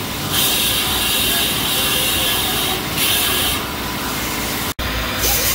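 Power grinder cutting metal, its pitch and hiss swelling and easing as the tool bites into the steel and lets off. It drops out for an instant just before the end.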